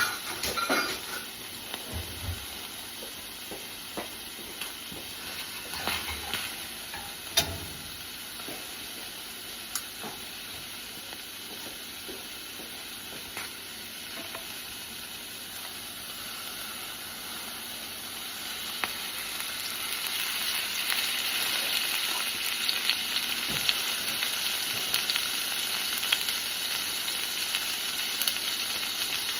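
Food sizzling and frying in a hot pan, with a few sharp knocks in the first several seconds. The sizzle grows louder and more crackly about two-thirds of the way through.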